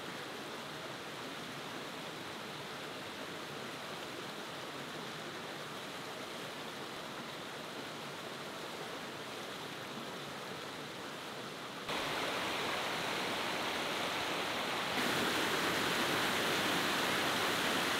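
Waterfall cascades rushing over smooth rock chutes, a steady rush of water that gets louder about twelve seconds in and again a few seconds later.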